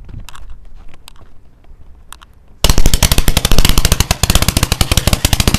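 A 500 g fan cake firework firing, with a sudden start about two and a half seconds in. It sends out a very fast string of sharp bangs, many per second, like machine-gun fire. The first part is quieter, with a few faint clicks.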